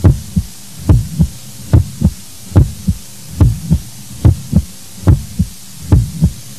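A heartbeat: steady double thumps (lub-dub), about seventy beats a minute, deep and low.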